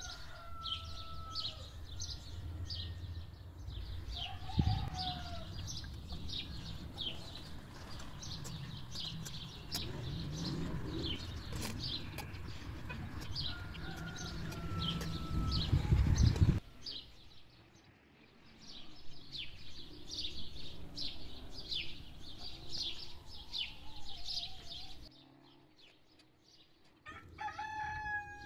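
Chickens clucking and calling, with rapid high chirps throughout. A low rumble with a single knock about five seconds in stops suddenly a little past halfway, and a longer pitched call comes near the end.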